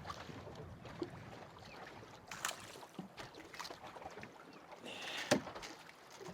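Scattered clicks, knocks and light water noise while a hooked fish is landed and handled, with the sharpest knock about five seconds in.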